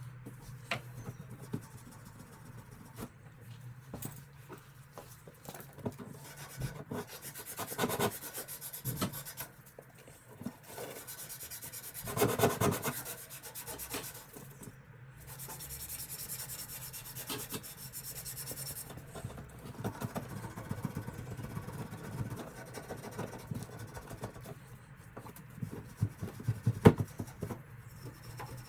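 A pipe being rubbed clean by hand, in several spells of scratchy scrubbing strokes, to prepare it after the old olives are removed. A sharp knock comes near the end.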